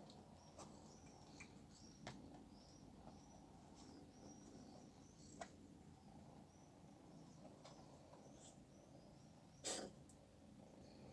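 A cat sneezes once, a short sharp burst, about three quarters of the way in. The rest is near silence with faint bird chirping and a few soft clicks.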